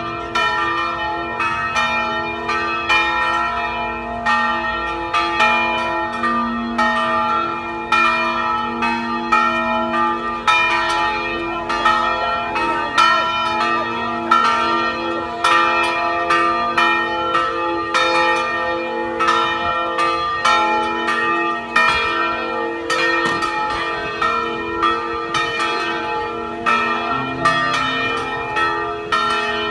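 A peal of church bells ringing without pause, struck in quick succession at about two to three strikes a second, several pitches sounding together and ringing on between strikes.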